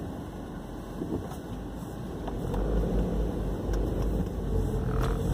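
Inside a moving car: a steady low rumble of engine and road noise, growing louder about halfway through.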